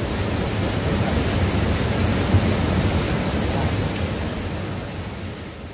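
Steady rushing noise of river water, with wind buffeting the microphone; it fades gradually near the end.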